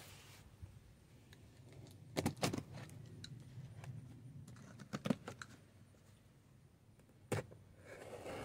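Box cutter slicing the packing tape on a cardboard box, with short clicks and scrapes of the blade and the carton being handled, heaviest about two seconds in, again around five seconds, with a single sharp click past seven seconds.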